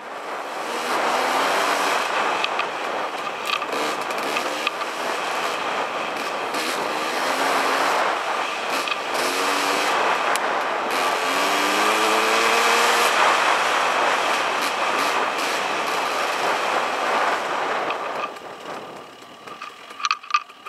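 Dirt bike engine pulling along a dirt trail under heavy wind rush on the mic, its revs rising several times as it accelerates. Near the end the throttle closes and it goes quieter, with a few sharp clicks.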